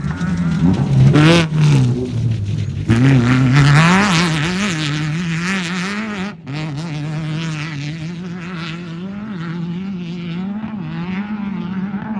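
Off-road race car engine revving, its pitch wavering up and down the whole time, with louder, harsher stretches in the first few seconds and a brief drop about six seconds in.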